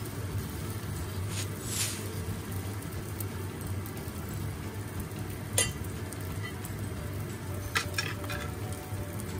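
Pancake batter frying in an oiled pan, giving a steady sizzle. A sharp tap comes about five and a half seconds in and a quick cluster of three taps about eight seconds in, likely a utensil against the pan.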